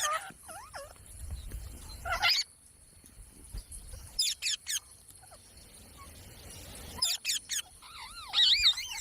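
Pet Indian ringneck parakeet calling in short bouts of quick chirps and sweeping whistles, ending with a longer wavering warble near the end.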